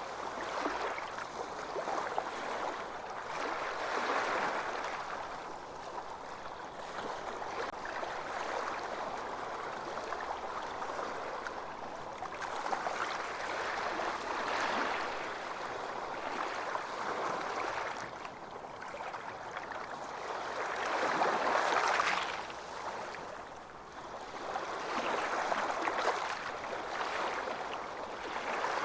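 Ocean surf: waves breaking and washing up a beach in irregular swells a few seconds apart, the loudest about two-thirds of the way through.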